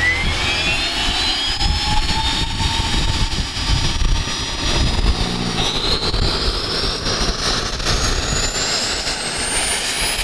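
SubSonex personal jet's small PBS TJ100 turbojet spooling up: a rising turbine whine over a steady rush of jet noise. The pitch climbs the whole time and steps up about halfway through.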